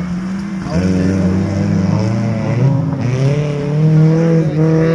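Off-road race 4x4 engines running and revving, a steady engine drone under a pitch that rises and falls with the throttle.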